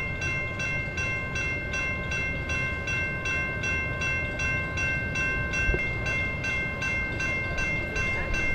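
Railroad crossing warning bell ringing steadily at about two to three strokes a second, with a few steady high tones over a low rumble from the train.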